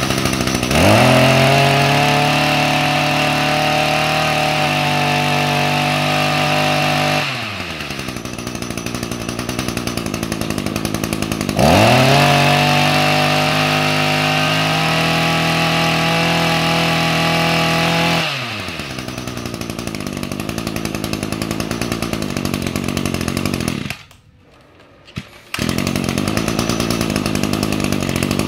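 Echo 22cc two-stroke brush cutter engine running, revved up twice from idle to a high, steady speed for about six seconds each, then dropping back to idle. Near the end the sound cuts out for about a second and a half, then the idle resumes.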